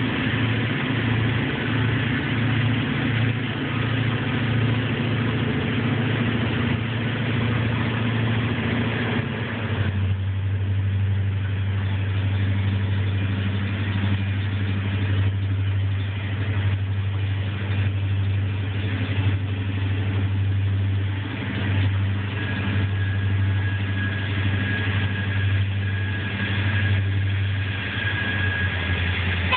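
Several EMD 645 diesel engines in GP38 road-switcher locomotives running together in a deep, steady drone as the train comes in. About a third of the way in the engine note shifts from a pulsing sound to a steadier, deeper hum. A faint thin whine comes and goes near the end.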